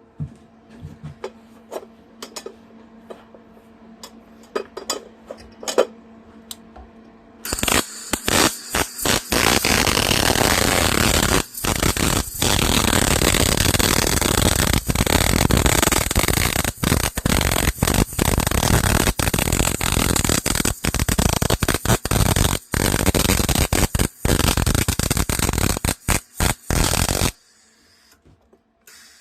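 Arc welding on a broken mower deck bracket: after a few seconds of faint clicks over a steady hum, the arc crackles and sizzles for about twenty seconds, broken by many brief stops, then cuts off.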